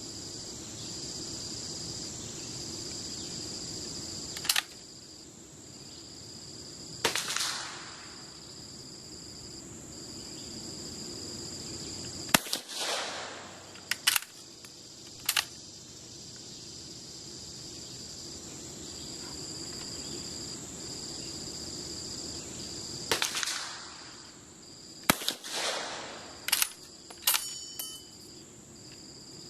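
Austrian Steyr M1888/95 rifle in 8x50R firing cast-bullet loads: several shots spaced seconds apart, each with a short echo, with the bolt worked in sharp metallic clicks between shots. Crickets chirp steadily underneath.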